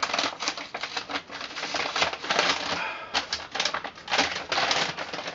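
Brown paper gift bag rustling and crinkling as it is handled and opened, in quick irregular crackles.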